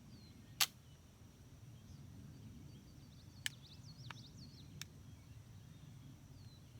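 A flintlock pistol's lock clicking: one sharp snap about half a second in, then a few lighter clicks, with no shot going off, as the pistol refuses to fire. Small birds chirp faintly in the background.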